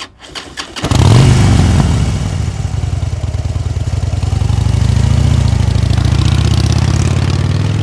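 Motorcycle engine sound effect: a few clicks, then the engine starts about a second in and runs with a steady low throb.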